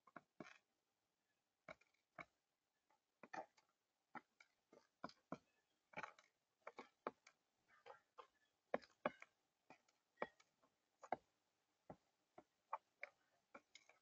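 Mourning dove pecking at seed on a feeder table: irregular sharp taps of its beak, one to several a second, some in quick pairs.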